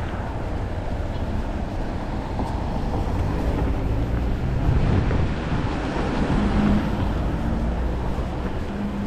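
Street traffic: a motor vehicle's engine and tyres passing close, growing louder toward the middle, with a steady engine hum in the last few seconds.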